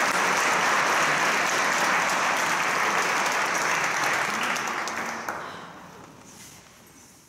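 Audience applauding in welcome, steady at first, then dying away about five to six seconds in.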